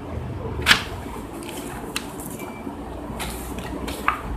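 Game pieces and packaging being handled while a board game is unpacked: a few short clicks and rustles of plastic and paper.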